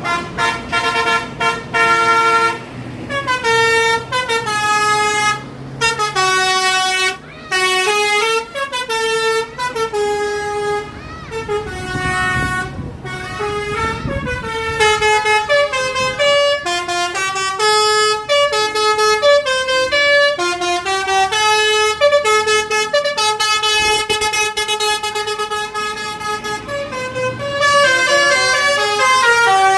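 A bus's 'telolet basuri' multi-tone musical horn playing a long tune of quick stepped notes, with brief pauses between phrases.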